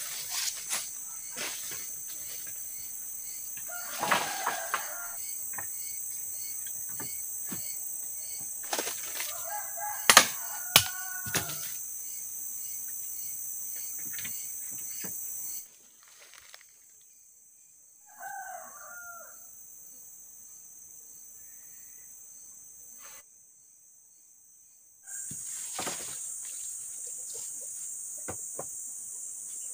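A rooster crows three times over a steady high-pitched drone of insects, with rustling in dry leaves and a few sharp knocks of wooden poles being dropped and laid on a stick frame, the loudest about ten seconds in.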